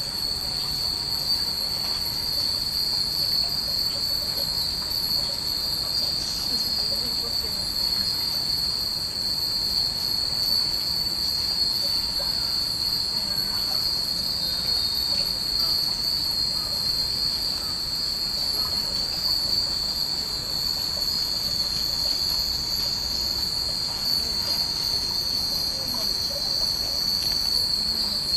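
A steady, high-pitched cicada drone is the loudest sound throughout. Many small wind chimes (fūrin) tinkle faintly beneath it.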